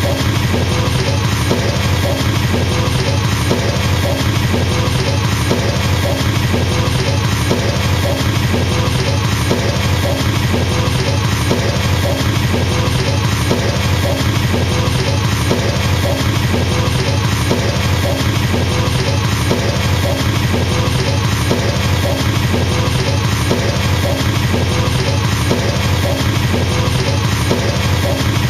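Drum kit with double bass drum pedals playing an unbroken, very fast stream of kick-drum strokes, a machine-gun or helicopter-like rattle that stays steady throughout.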